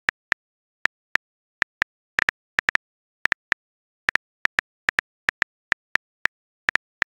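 Phone keyboard key-click sound effect, one short click per typed letter, coming about four a second at an uneven typing pace.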